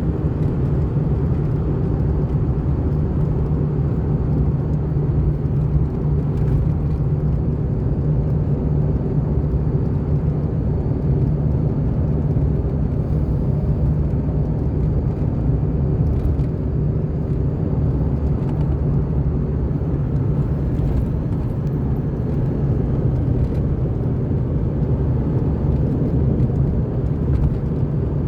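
Car driving at a steady speed: a constant low rumble of engine and tyre road noise that doesn't rise or fall.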